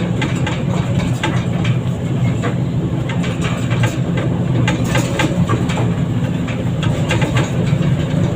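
Heavy diesel machinery running steadily, with frequent short clanks and rattles over the engine's low hum.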